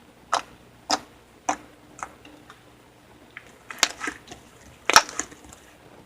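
Slime being pressed and squeezed by hand, giving sharp little pops and clicks: four evenly spaced in the first two seconds, a quick cluster around four seconds in, and the loudest pop about five seconds in.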